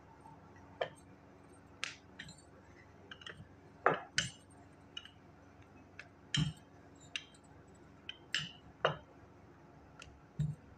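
Irregular clinks and knocks while dough is rolled out and turned by hand on a marble counter: metal and glass bangles on the wrist clink, and a wooden rolling pin knocks on the stone.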